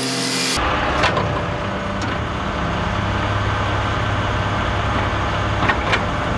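A 5-ton food-waste collection truck's engine running with its hydraulics driving the side bin lifter as the control lever is worked: a steady mechanical drone with a few sharp metallic clicks.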